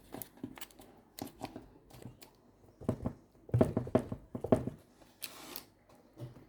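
Hands working dough in a baking pan: light taps and rustles, with a run of louder knocks about three and a half to four and a half seconds in and a short hiss just after.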